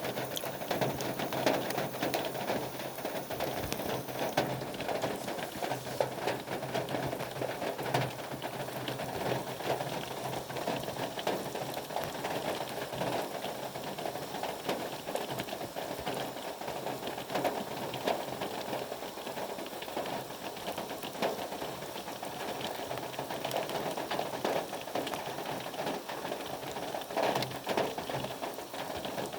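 Steady rain falling on a hard surface: a dense, irregular ticking of drops over a constant hiss.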